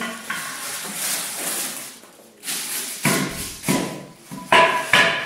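Plastic wrapping rustling as the wrapped metal poles of a Vertec vertical jump tester are handled, then a run of knocks as the poles strike the cardboard box and floor. The last knocks are the loudest and ring briefly.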